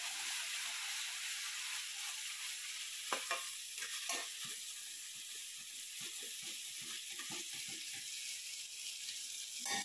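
Ground masala paste sizzling as it fries in hot oil in a stainless steel pan, with a spatula stirring it and scraping the pan now and then, most clearly about three and four seconds in.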